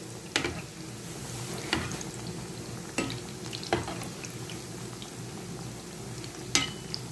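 Keema pakoras deep-frying in hot oil in a kadhai, a steady sizzle, as a metal slotted spoon turns them. About five sharp clinks of the spoon against the pan are spread through it.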